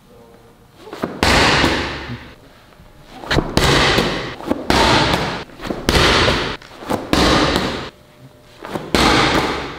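Medicine ball (an 8 lb wall ball) thrown hard into a wall in repeated rotational throws: about six loud slams, one to two seconds apart, each trailing off in the room's echo.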